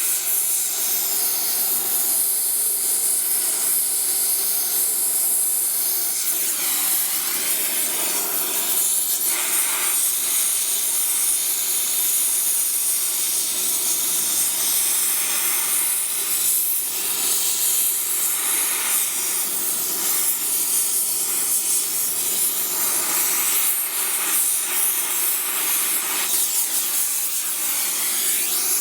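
Gas torch flame hissing steadily as it heats a drilled-out broken bolt to loosen it for extraction.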